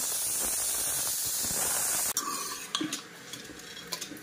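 Steam hissing steadily from a pressure cooker on the stove, cutting off abruptly about two seconds in. Then a metal ladle clinks and scrapes inside the cooker pot, scooping out cooked curry.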